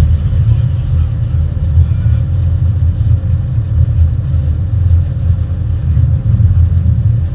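Cab noise of a Class 50 diesel-electric locomotive under way: its English Electric V16 diesel engine running with a steady, loud low rumble.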